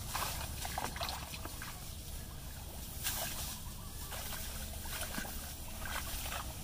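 Rustling of leafy branches and grass as people push and crouch through the brush, with scattered crackles and a low steady rumble underneath.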